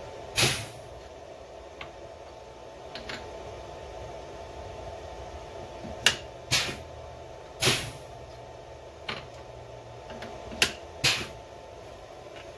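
Pneumatic drawbar on a Grizzly G0704 CNC-converted mill being worked to release and seat the tool holder: several short, sharp air blasts, some in pairs about half a second apart, over a steady background hum.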